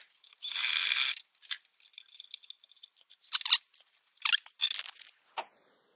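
Hand tools fitting a screw into a lamp mount: a brief whirring burst about half a second in, then scattered sharp clicks and light rattles of metal parts and tools.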